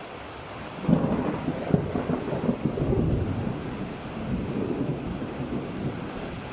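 A thunderclap over steady rain: it breaks suddenly about a second in and rolls on as a crackling rumble that slowly fades.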